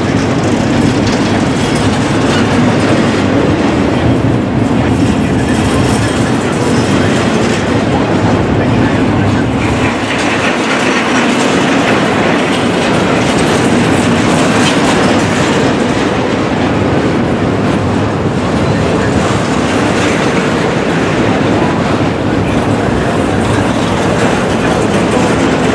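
Double-stack container train's well cars rolling past close by: a steady, loud rolling noise of steel wheels on the rails.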